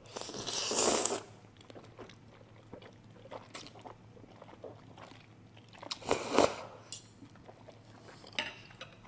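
A mouthful of noodles slurped from a fork, in a long loud slurp in the first second and a shorter one about six seconds in, with chewing and small wet mouth clicks between.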